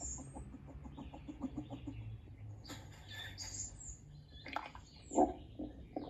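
Bird calls: scattered high chirps and peeps, with a louder, lower call about five seconds in.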